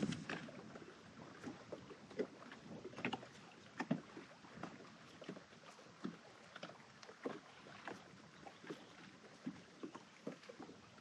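Small waves lapping against a boat's hull: faint, irregular slaps and splashes, one or two a second.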